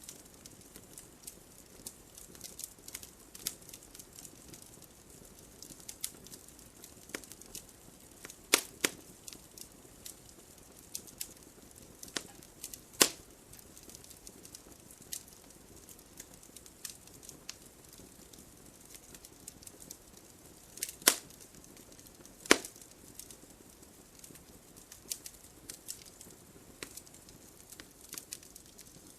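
Wood logs burning in a fireplace: a steady scatter of small sharp crackles over a faint hiss, with a few louder pops spread through, the loudest two about three-quarters of the way in.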